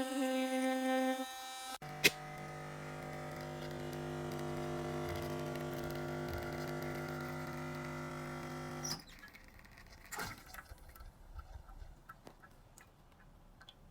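A machine running with a steady, even hum from about two seconds in, starting with a click and stopping abruptly around nine seconds, followed by a few faint clicks.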